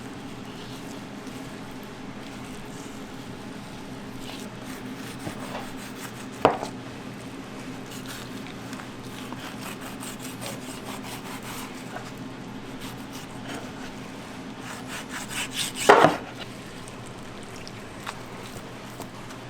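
Kitchen food-preparation sounds: handling and rubbing on a wooden board, with a sharp knock about six seconds in and a louder cluster of knocks near sixteen seconds, over a steady low hum.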